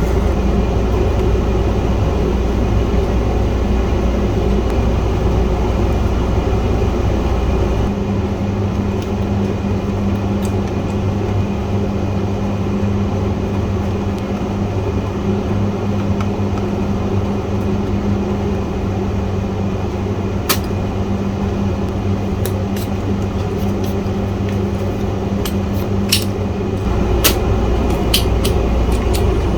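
Steady mechanical hum, with a low steady tone joining about a quarter of the way in and dropping out near the end, and a few light clicks in the second half.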